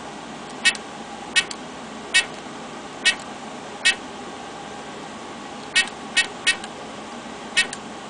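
Home-built security keypad beeping once for each key pressed as a code is entered: nine short high beeps, unevenly spaced, over a steady background hum.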